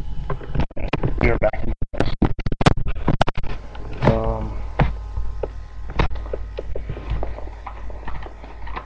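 Clicks, knocks and scraping of an airsoft pistol being handled and worked up close to a webcam microphone, thickest in the first few seconds, with a short low pitched sound about four seconds in and a steady low hum underneath.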